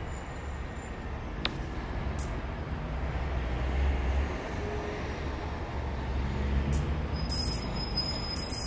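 Low, steady rumble with a hiss over it, swelling a little about midway, with a few short high crackles and a thin high tone near the end.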